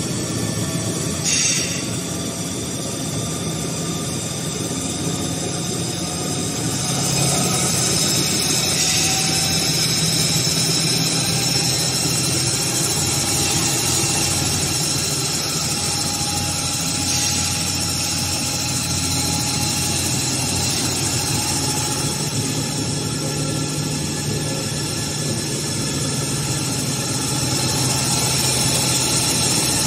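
HS1300 film slitter rewinder running, a steady mechanical hum and whine from its rollers and drives as slit plastic film winds onto the rewind shafts. The whine rises and grows louder over the first several seconds as the machine speeds up toward its 600 m/min setting, then holds steady. There is a short click about a second in.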